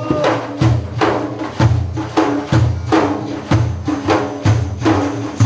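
Hand percussion of a religious praise ensemble, frame drums with jingles, beating a steady rhythm of about two strokes a second over a sustained low tone, with no voice.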